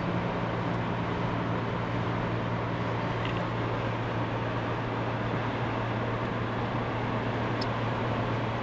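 Steady road and engine noise inside a car cruising at motorway speed, with a constant low hum under an even rush of tyre and wind noise.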